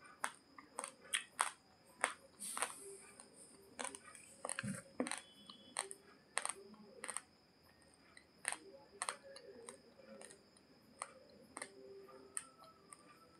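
Raw Daawat Pulav basmati rice grains crunching as they are chewed: sharp, irregular cracks, a few a second.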